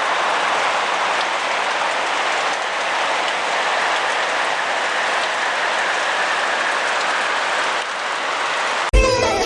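Steady hiss of rain falling on rainforest foliage. Music with a heavy beat cuts in suddenly near the end.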